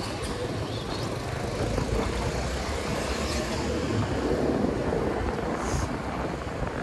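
Wind buffeting the microphone of a chest-mounted camera on a moving bicycle: a steady low rumble mixed with tyre and road noise.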